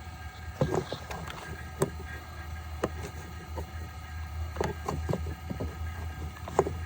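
Scattered clicks and knocks of hands and a pick working the plastic coolant-hose quick-connect fittings and their tabs, over a steady low hum.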